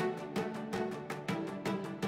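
Background music with a quick, steady pulse of notes.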